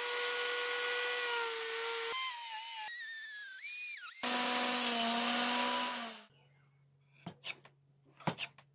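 Bosch angle grinder with a thin abrasive cut-off disc, mounted as a table saw, whining at high speed while it cuts a slot through a board. The pitch shifts a few times and settles lower from about four seconds in, then the motor stops about six seconds in. A few faint clicks follow near the end.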